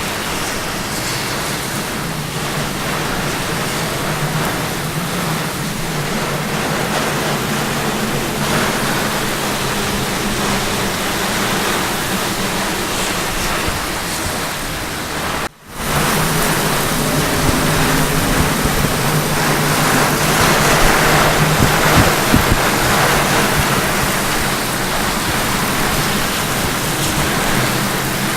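Heavy rain falling with wind, a steady rushing noise. It breaks off for an instant about halfway through and then comes back a little louder.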